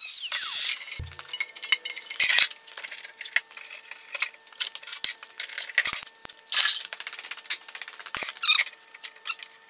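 Sheet-aluminium pieces clinking, knocking and rattling as they are handled on a steel workbench, with a few louder clatters spread through. It opens with a handheld power tool spinning down in falling pitch, and a faint steady hum runs underneath.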